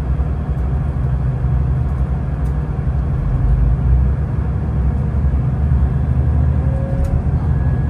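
Engine of a large vehicle running with a steady low drone.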